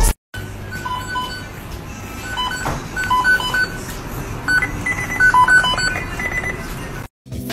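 A series of short electronic beeps at a few different pitches, coming in irregular clusters over a steady background hiss.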